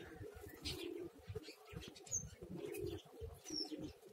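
Pigeons cooing softly, with a couple of short high peeps from a newly hatched chick.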